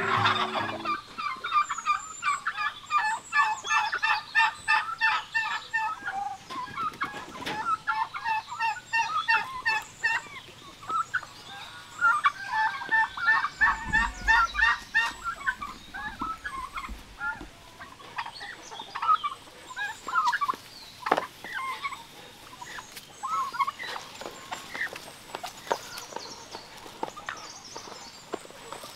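Domestic turkeys gobbling in rapid runs of calls, loudest in the first few seconds and again about halfway through, with sparser, softer calls from the flock afterwards.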